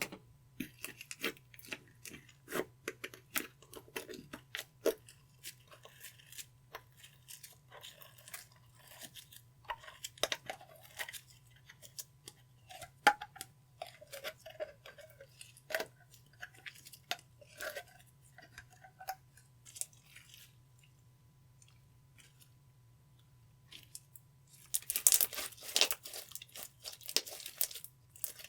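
Clear slime being squished and worked by hand, making irregular sticky clicks and pops, with a dense flurry of them near the end.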